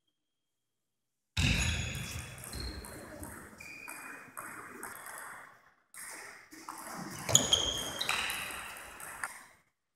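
Table tennis ball clicking off rackets and the table during play, each hit with a short ringing ping. The sound starts abruptly about a second and a half in and cuts off near the end.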